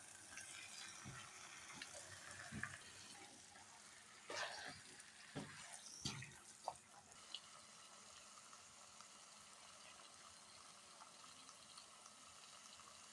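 Faint steady hiss of running or bubbling water, with a few knocks and clinks in the middle.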